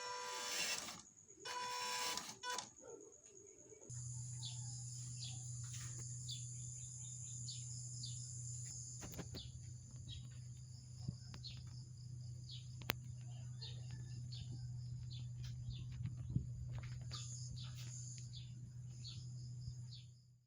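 A small electric motor whines briefly at the start, then short chirps, like birds, come over a steady low hum and a high steady tone.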